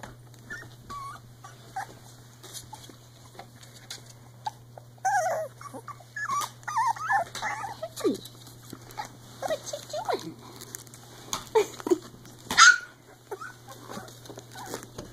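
Three-week-old Icelandic Sheepdog puppies whimpering and yipping as they play-wrestle, in many short squeaky cries and a few falling whines, busiest in the middle. A louder, sharp sound comes near the end.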